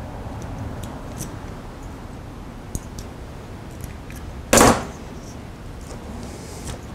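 Small handling sounds of wires and hand tools during wire splicing at a workbench: a few faint ticks and, about four and a half seconds in, one short sharp noise, the loudest sound.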